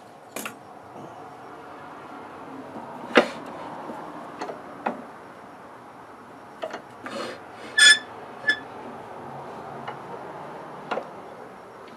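Metal knocks and clanks of a wood lathe's tool rest and banjo being moved along the bed and clamped in place: about a dozen sharp knocks, the loudest about three and eight seconds in, some ringing briefly.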